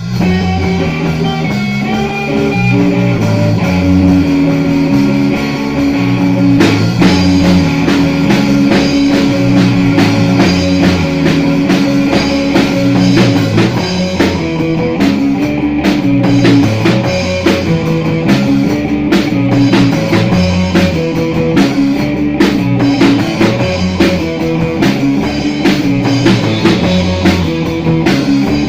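A rock band plays an instrumental passage on a Fender Jazz bass, an Aria Pro electric guitar and a Yamaha drum kit. Bass and guitar notes open it, and the drums come in about seven seconds in.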